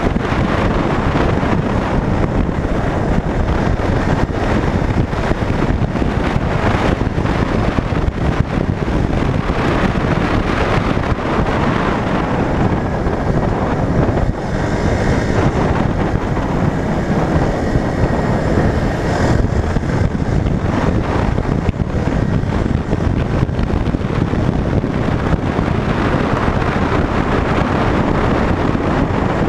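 A 200 cc single-cylinder motorcycle running at speed on the open road, its engine under heavy wind rush on the microphone. About halfway through a passing vehicle briefly adds a higher hiss.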